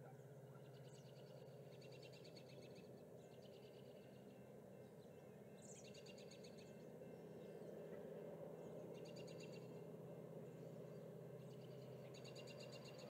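Faint songbirds singing: several high, rapid trilled songs of about a second each, repeated every few seconds. Underneath is a steady low hum and a low background rumble that grows a little louder in the second half.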